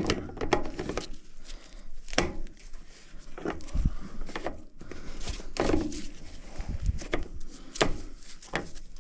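Scattered knocks, clunks and footsteps of tools and fittings being handled in a small room.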